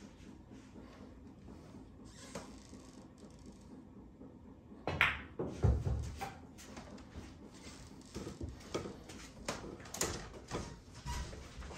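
Pool balls and cue at play: a sharp clack about five seconds in with a low thud just after, then a run of lighter knocks and clacks.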